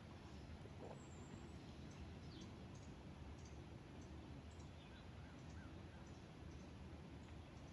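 Near-silent outdoor ambience with faint, scattered bird chirps and short calls over a low steady rumble.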